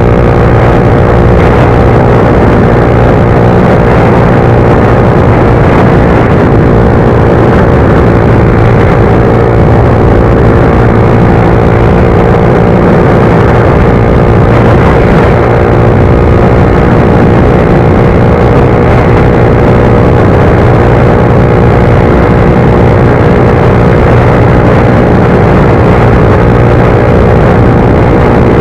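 Suzuki GSX-R125's single-cylinder engine running at steady revs while the bike cruises, with an even rush of wind and road noise.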